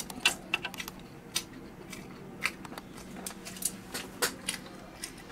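Someone chewing crispy fried chicken gizzards close to the microphone: a run of irregular, sharp crunches and crackles.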